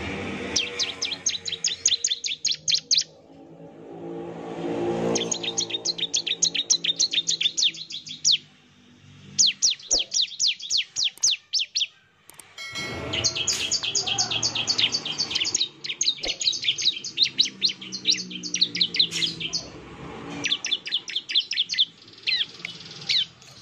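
Bar-winged prinia (ciblek) singing its rapid 'nembak' song: quick trains of sharp, high notes at about six a second, in five bouts separated by short pauses. A low droning sound runs underneath at times.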